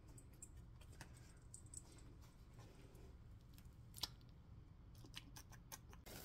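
Near silence with a few faint clicks and light taps of a plastic salad container and fork being handled, the sharpest tap about four seconds in and a quick run of small clicks near the end.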